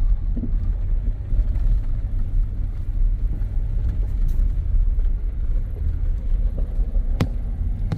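Off-road vehicle driving slowly up a steep dirt trail: a steady low rumble of engine and tyres, with one sharp click or knock near the end.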